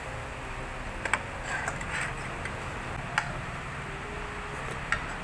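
Metal cutlery clinking against a ceramic plate, three short clicks spread over a few seconds, over steady room hum.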